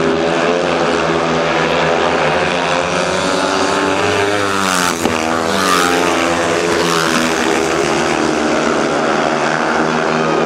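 Several 500cc single-cylinder speedway motorcycles racing at high revs. About halfway through, the engine note swoops down as bikes pass close by, with a sharp click at that moment.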